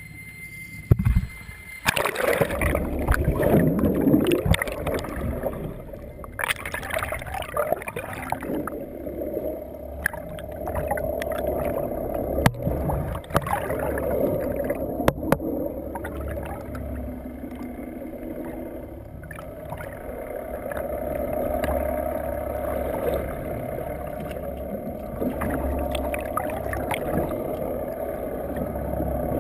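Muffled underwater sound as the camera plunges in about two seconds in: splashing and gurgling water, then a steady hum of the boat's outboard motors running, heard through the water.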